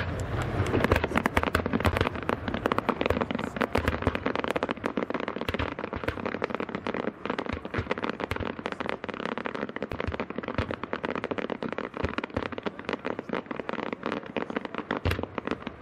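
Fireworks display crackling: a dense, continuous mass of rapid small pops, with a deeper thump near the end.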